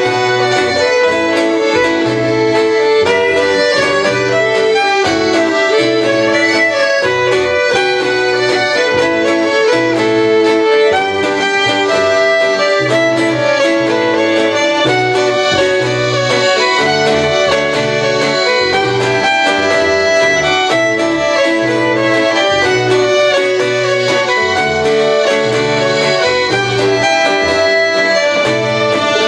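Live Breton folk dance music: a fiddle-led tune with accordion over a steady, repeating bass rhythm.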